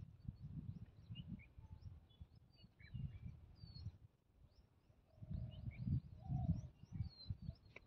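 Small birds chirping with short, high calls scattered throughout, and a dove cooing twice about five to seven seconds in. Under them runs a low rumble that swells and fades.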